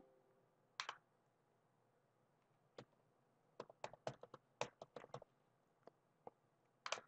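Faint computer keyboard typing: a quick run of key presses in the middle, with a few separate clicks before and after.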